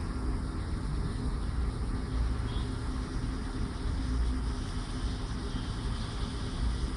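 Steady low rumble of city street traffic heard from high above, with no single vehicle standing out.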